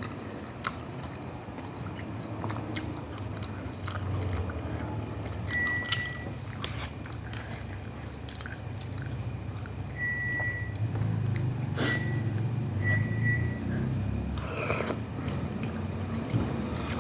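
Close-up chewing and biting of instant cup noodles with meatballs and egg, with scattered small clicks. A low steady hum runs underneath and swells about two-thirds through, and a few brief high chirps come through.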